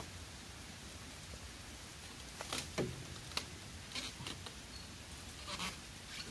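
Dry bamboo leaves and stems rustling and crackling under hands digging at the base of a bamboo clump for shoots, in several short bursts, the loudest a little before halfway through.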